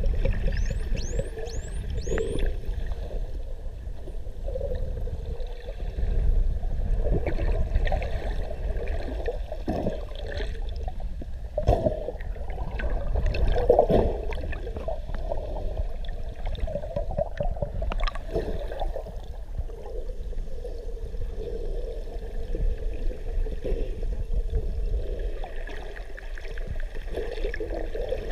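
Indo-Pacific bottlenose dolphins vocalising underwater: a few quick rising whistles near the start, then scattered clicks and short pulses over a steady low rumble of water.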